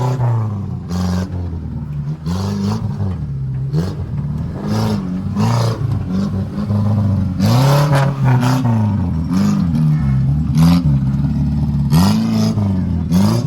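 Off-road 4x4's engine revving up and falling back again and again, about once a second, with scattered sharp knocks and clatter.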